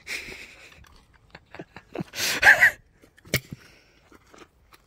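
A loud, breathy exhale from a person, about two seconds in, with a sharp click about a second later and faint clicks of handling around it.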